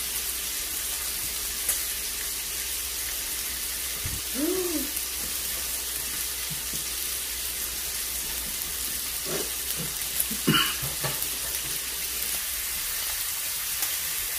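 Meat sizzling steadily on an electric tabletop grill pan. About four seconds in there is a short hum-like voice sound, and around ten seconds a few light clicks and knocks.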